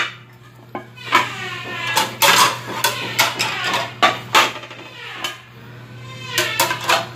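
Ceramic plates clinking and clattering against each other and the black metal wire dish drainer rack as they are slotted in, a string of sharp clinks, some ringing briefly.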